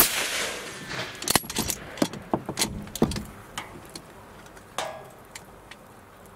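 A single hunting-rifle shot that cracks out at once and trails off as it echoes, fired at a roe buck. It is followed by a run of sharp clicks and knocks over the next few seconds, and another short rattle near the end.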